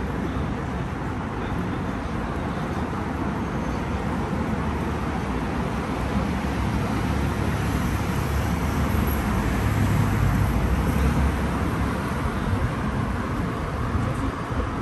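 Steady city road traffic noise, vehicles running along a road, growing louder around the middle and easing off again.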